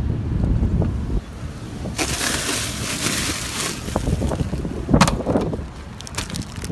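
A bag of ice being pulled from an outdoor ice merchandiser: the plastic bags scrape and crinkle against each other for about two seconds, then a sharp knock about five seconds in, with wind rumbling on the microphone throughout.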